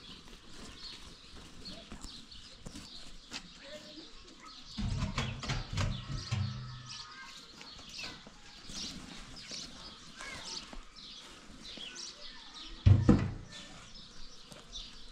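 Birds chirping throughout. About five seconds in comes a low drawn-out call lasting about two seconds, and near the end a heavy knock as the large metal cooking pot is set down on the ground.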